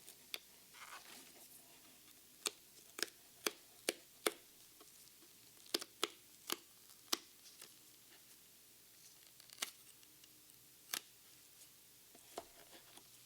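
Booster-box packaging being handled: about a dozen sharp clicks and taps, some in quick pairs, with a soft rustle about a second in.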